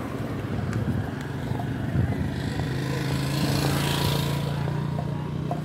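Road traffic: a vehicle engine running with a steady hum, and a whoosh that swells and fades about three to four seconds in, like a vehicle passing.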